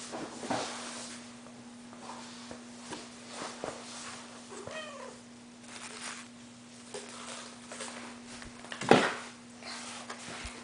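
Sphynx cat meowing once, a short call that rises and falls, about halfway through, with a brief loud knock near the end.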